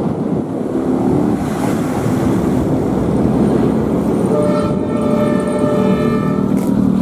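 Rail track tamping machine (MTT) running with a steady heavy rumble, and a horn sounding for about two seconds from about four seconds in.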